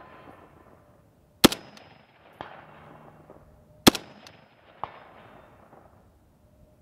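Two single rifle shots from an FN FAL-pattern .308 (7.62×51) rifle, about two and a half seconds apart. Each is followed by a fainter sharp crack about a second later.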